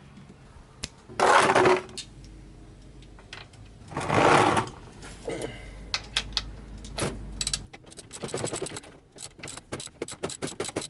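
A socket ratchet wrench clicking quickly and repeatedly from about halfway in, working the oil drain plug loose on a BMW E30. Earlier there are two short loud rasping noises.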